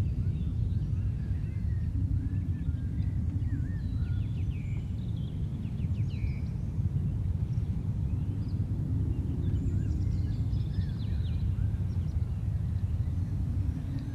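Outdoor ambience: a steady low rumble with many small birds chirping over it.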